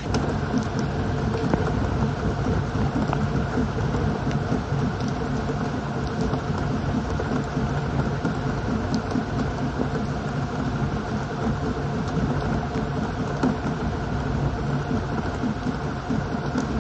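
Small boat's outboard motor running at a steady speed under a continuous rushing noise; it gets louder at the very start.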